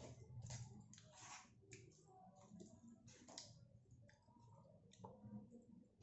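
Faint clicks and scrapes of a plastic fork working spaghetti inside a cardboard takeout box, over a low steady hum.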